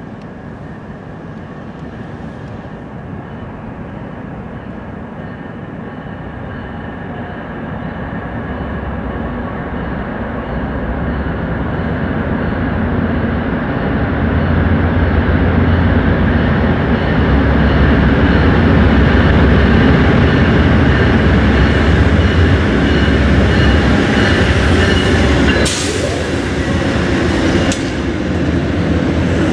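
Amtrak California Zephyr passenger train approaching in a concrete railway trench: the low drone of its diesel locomotives grows steadily louder, then holds as the train rolls past. Two sharp clacks come near the end.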